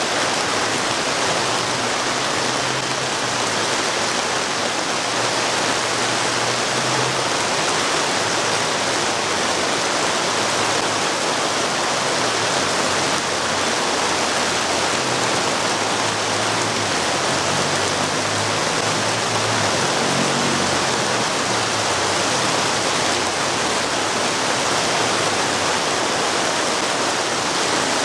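Heavy tropical rain pouring down steadily, a dense unbroken hiss of rain striking the ground.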